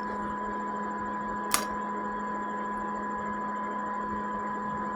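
Small electric fan running at low speed: a steady hum with a faint whine over it. A single sharp click about a second and a half in.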